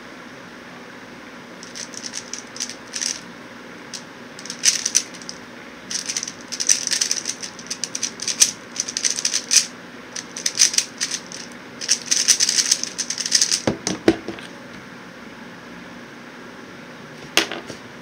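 Plastic layers of a QiYi X-Man Tornado V1 3x3 speedcube clicking and clacking as they are turned fast, in quick bursts with short pauses, during a timed speedsolve. A few low knocks come as the turning stops, then a single click a few seconds later.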